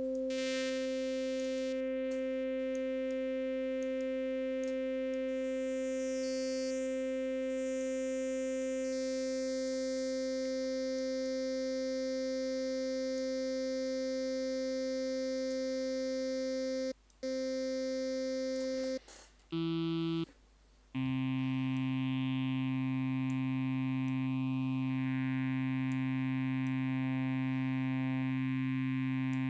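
A sustained Harmor synthesizer note at middle C, built on a sawtooth. Its tone keeps shifting as the harmonic levels of its timbre are redrawn. The note breaks off briefly a few times about two-thirds of the way in, then comes back deeper and fuller.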